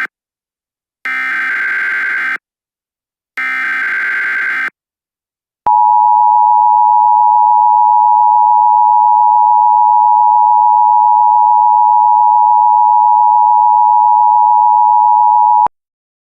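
Emergency Alert System header: the last two of three harsh, buzzing SAME data bursts, each about a second long, then the EAS attention signal, a steady two-tone beep (853 and 960 Hz) held for about ten seconds and cut off sharply. The attention signal announces the spoken tornado warning that follows.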